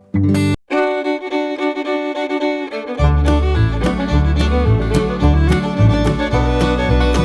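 Bluegrass-style background music with fiddle, banjo and guitar, starting abruptly; a steady beat and bass come in about three seconds in.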